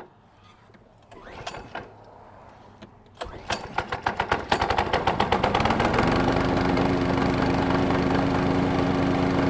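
Powersmart DB8621SH mower's 209cc four-stroke overhead-valve engine pull-started after priming: after about three quiet seconds it catches, fires in quick beats that speed up, and by about six seconds settles into a steady, not very loud run.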